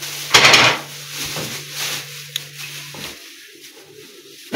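Paper pages of a large paperback book rustling as they are turned by hand, loudest about half a second in and again at the end. A low steady hum in the background cuts off about three seconds in.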